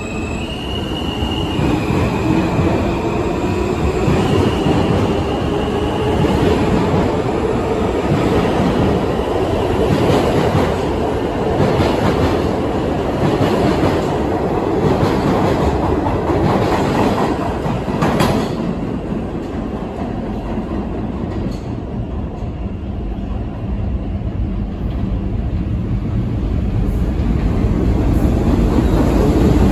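Subway train pulling out: the electric traction motors whine in steps and climb in pitch as it speeds up, then the wheels clack over the rail joints as the cars pass. The clatter fades after about two-thirds of the way through, and a rumble builds again near the end.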